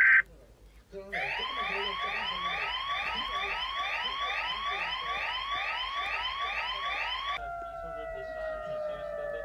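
Emergency alert siren: a fast rising sweep repeated about twice a second, changing about seven seconds in to a long tone sliding slowly down in pitch. A loud steady alert tone cuts off at the very start.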